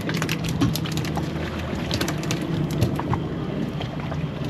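A steady low hum from the drifting boat under a scatter of crackling water splashes and small knocks.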